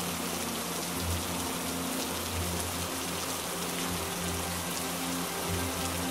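Heavy rain falling steadily as an even, dense hiss. Soft, low music notes are held and changed underneath.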